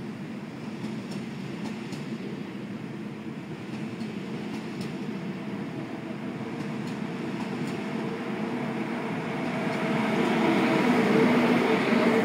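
An ICE 1 high-speed train pulling out and running past. Its steady running noise builds, with a low hum and a higher steady tone, and is loudest near the end as the rear power car goes by.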